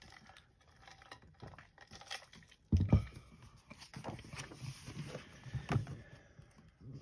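Paper pages of a colouring book being turned and handled: soft rustles and light clicks, with one louder handling noise about three seconds in.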